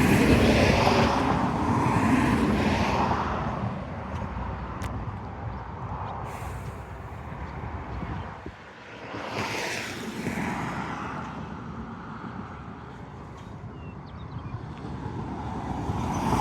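Gusty wind buffeting the microphone, a low rumbling rush that surges twice, once at the start and again about nine seconds in.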